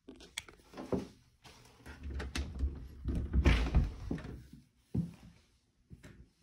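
An apartment entry door is unlatched and opened. The lock and lever handle give a few sharp clicks, then there is a rough rumbling shuffle as the door swings open, and a thud about five seconds in.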